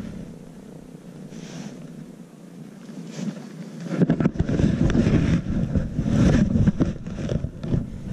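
Rumbling, rustling handling noise on a handheld camera's microphone. It turns much louder and crackly about four seconds in as the camera is swung around.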